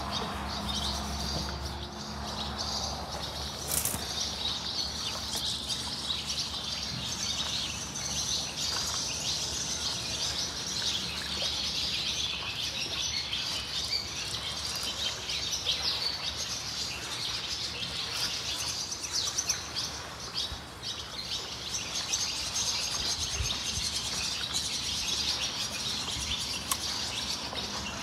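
Many small birds chirping and twittering continuously in a busy, overlapping chorus.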